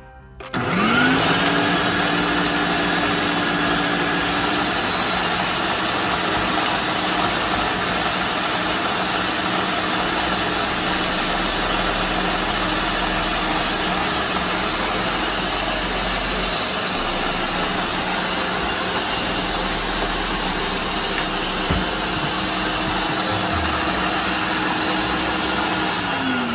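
Ninja Professional countertop blender motor starting up with a rising whine about half a second in, then running steadily as it blends a thick herb paste. Near the end it is switched off and the motor winds down with a falling whine.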